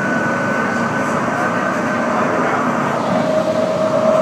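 C-Train light rail train running along the track at speed: steady wheel-on-rail running noise with a high electric whine that fades out about two seconds in, and a lower whine that comes in about three seconds in.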